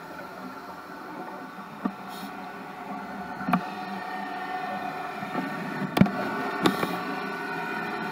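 Underwater sound during a scuba dive: a steady hum with several tones, broken by four sharp clicks, the loudest about six seconds in.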